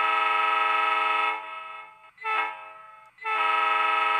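Diesel locomotive horn (horn number 2 of three selectable) from the sound decoder of a Broadway Limited Paragon4 HO-scale EMD GP20, played through the model's speaker: a long steady blast that stops about a second in, one short toot from a quick tap, then another long blast starting near the end.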